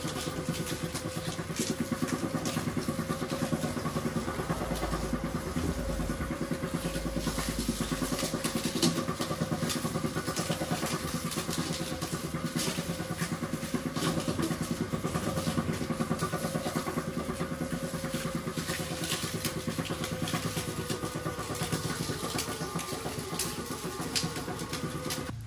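Motor-driven sugarcane mill running steadily with a fast, even mechanical rhythm, with scattered sharp cracks as cane stalks are crushed between its gear-driven rollers to press out the juice for cachaça.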